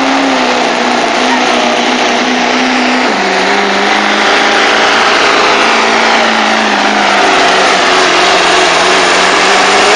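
Duramax 6.6-litre V8 turbodiesel in a Chevrolet Silverado pulling a weight-transfer sled under heavy load, blowing black smoke. The loud engine note sits over a dense rushing noise. Its pitch drops a step about three seconds in and then sags slowly.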